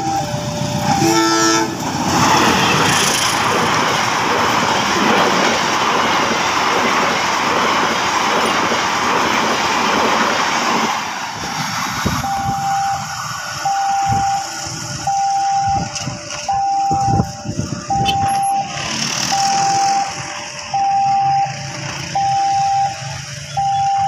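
Level-crossing warning alarm sounding its two-tone ding-dong, high then low. A CC201 diesel-electric locomotive hauling a passenger train then passes close by with a loud, steady rush of engine and wheel noise for about nine seconds. After that the crossing alarm is heard clearly again, about once a second.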